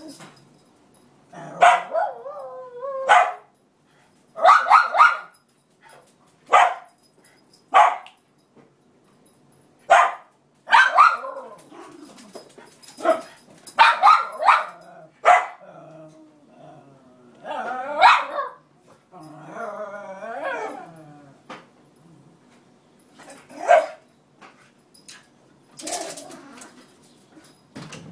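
Cairn terrier barking in repeated short bursts, with wavering whining cries in between: protest barking at another dog that has taken her bed.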